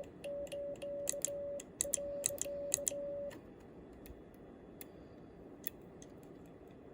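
Home-made stainless-steel bug key (semi-automatic Morse key) sending Japanese Morse code: a steady mid-pitched sidetone beep keyed into dots and dashes, with the key's contacts clicking as it makes and breaks. The sending stops a little over three seconds in, leaving a few stray clicks.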